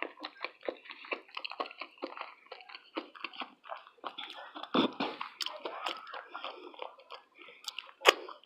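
Close-miked chewing and biting of a vegetarian taco: irregular wet mouth sounds and small clicks, with a louder moment about five seconds in and a sharp click near the end.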